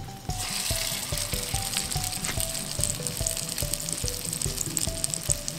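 Pike patty sizzling in hot oil in a cast-iron frying pan. The crackling sizzle starts just after it is laid in and runs on, over background music with a steady beat.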